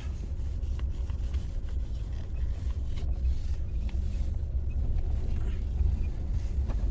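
Steady low rumble of a vehicle driving slowly, engine and road noise, with a few faint ticks.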